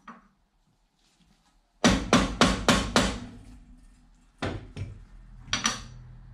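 Hammer blows on a socket driving a new sealed ball bearing into the main shaft bearing housing of a Burman CP gearbox. About two seconds in comes a quick run of about six sharp metal strikes, about four a second, then a few more spaced strikes later on.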